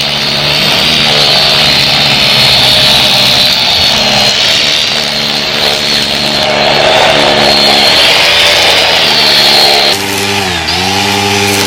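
Battery-powered Craftsman string trimmer running at speed with a steady high whine, its pitch dipping briefly and climbing back near the end.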